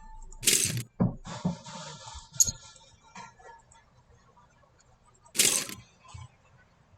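Plastic LEGO parts clinking and clicking as they are handled and fitted together, with two short, louder rustling bursts about half a second and five and a half seconds in.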